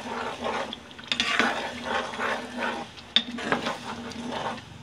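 Spatula stirring and scraping a thick cashew and poppy-seed gravy around a kadai, in repeated swishing strokes with one sharp tap about three seconds in. The steady stirring keeps the nut paste from catching on the bottom of the pan.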